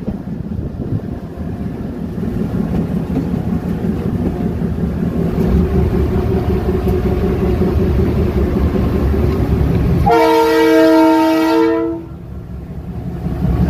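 Locomotive running noise heard from inside the cab, a steady low rumble that grows louder, then about ten seconds in a loud horn blast of nearly two seconds that cuts off abruptly. The horn sounds to warn animals at the trackside.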